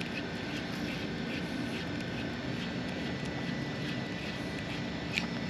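Steady rushing of a shallow, rocky mountain river.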